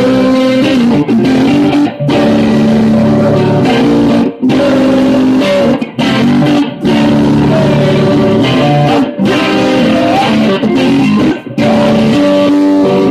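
Electric guitar strummed live, with a man singing over it; the playing comes in phrases broken by short stops every second or two.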